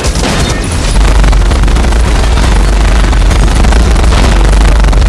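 Loud, continuous action sound effects: heavy booming blasts over a dense rattle of rapid gunfire, with a strong bass rumble.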